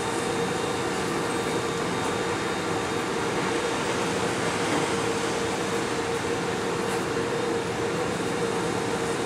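Steady drone of a ferry's machinery heard on board: a constant hum over an even rushing noise, unchanging throughout.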